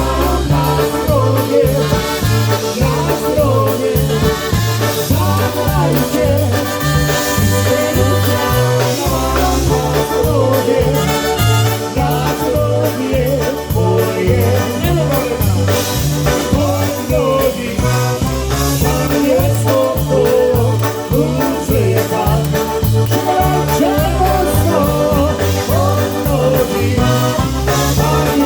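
Live polka band playing a tune, with the bass alternating between two notes on a steady beat under the melody instruments.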